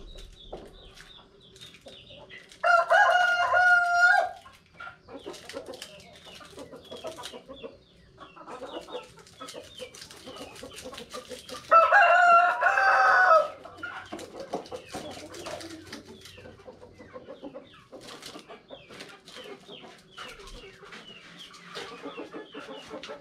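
A rooster crowing twice, each crow about a second and a half long and some nine seconds apart, with chickens clucking in between.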